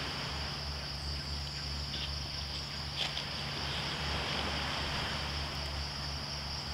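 Steady high-pitched chorus of insects over the even rush of a stream, with one short click about three seconds in.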